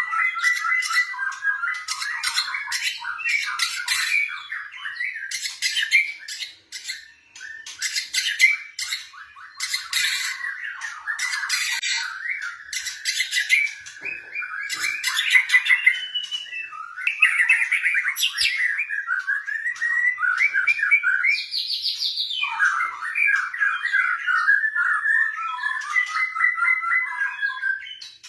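White-rumped shama (murai batu) singing a long, fast, varied song of rapid trills and harsh, clicking chatter, with only a brief pause about six seconds in.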